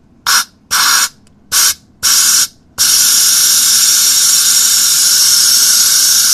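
Compressed air hissing from a hand-held nozzle blown into a refrigerator ice maker's water inlet, to clear a suspected ice blockage: four short blasts, then one long steady blast from just under three seconds in.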